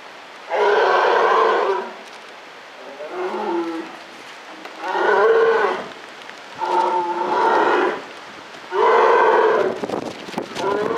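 Polar bear calling: a series of loud, drawn-out pitched calls about a second each, coming roughly every two seconds, one of them weaker, with a few sharp clicks near the end.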